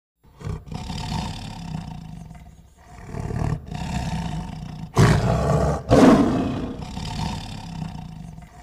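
Tiger growling and roaring in a series of rough, throaty calls, with the two loudest roars about five and six seconds in before it dies away.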